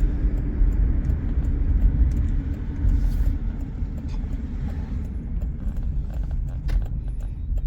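Cabin noise of a 1999 Subaru Legacy Outback on the move: a steady low rumble from its 2.5-litre boxer engine and tyres on the road, with a few light clicks near the end.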